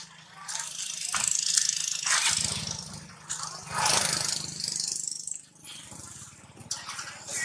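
A thin plastic bag crinkling and rustling as monkeys handle and rummage in it, loudest in the first five seconds. A low rapid rattle runs under it in the middle.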